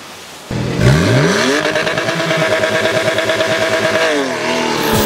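Car engine revving: quiet for the first half second, then climbing quickly to high revs, holding there for a few seconds and falling back near the end.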